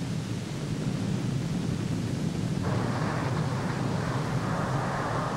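Steady low rushing roar of the fire-fighting scene on the carrier's flight deck. A brighter hissing rush joins about two and a half seconds in.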